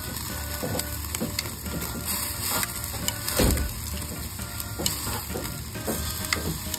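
Metal tongs clicking and scraping against a charcoal grill's wire grate while pieces of meat and vegetables are turned and shifted, in a run of irregular short clicks.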